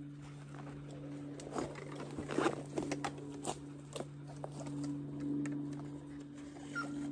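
A steady low hum runs throughout, with scattered rustles and sharp clicks of gear being handled against a tree trunk, thickest in the first half.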